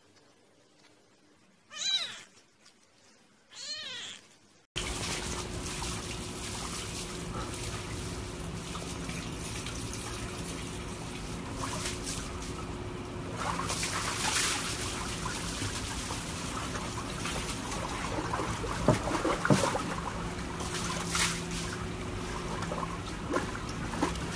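A kitten meows twice, a couple of seconds apart. Then, after a cut, water trickles and sloshes in a plastic tub with a husky sitting in it, over a steady wash of noise with a few short splashes.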